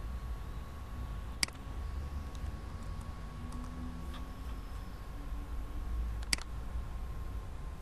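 Two sharp computer mouse clicks about five seconds apart, with a few faint ticks between, over a steady low hum.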